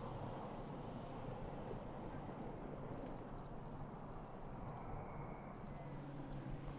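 Subaru Forester driving on a dirt track: a steady low engine hum with tyre noise from the loose ground.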